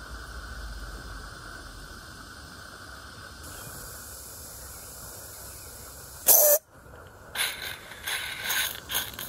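Roundhouse Jennie live-steam garden railway locomotive: a steady hiss, then a loud brief rush of noise about six seconds in, followed by irregular puffs of steam from the engine.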